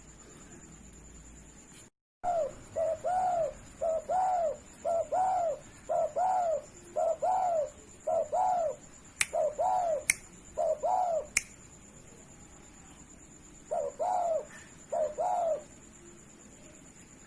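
Spotted dove (derkuku) cooing in full song: a run of rhythmic coo phrases made of short notes that rise and fall in pitch, for about nine seconds, then a pause and one more short phrase. A few sharp clicks come near the middle.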